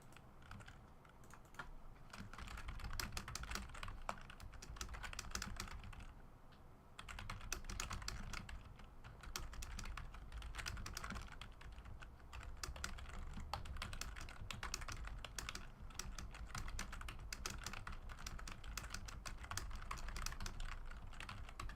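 Typing on a computer keyboard: a quick, irregular run of key clicks that keeps going, with a short pause about six seconds in.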